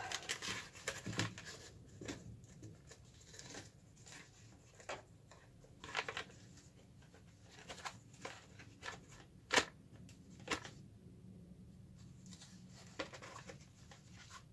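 Plastic housing of a VW Squareback fresh air blower box handled and fitted together by hand: scattered clicks, knocks and rustles, busiest in the first few seconds, with a sharp click a little under ten seconds in.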